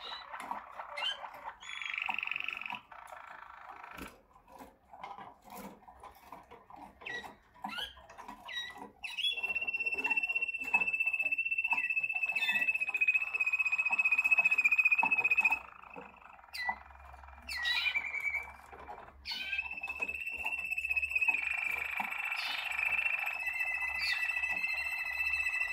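Malinois Waterslager song canaries singing: scattered short chirps and clicks, then long, steady whistled notes held for several seconds at a time, with a second, lower note joining in near the end.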